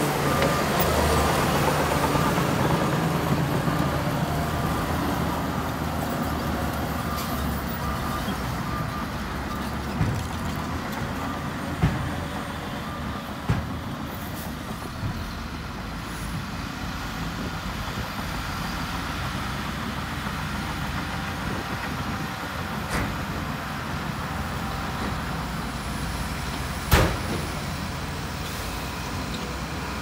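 Heavy diesel earthmoving machinery running steadily, louder at first and easing off over the first few seconds. A few sharp clanks cut through it, the loudest near the end.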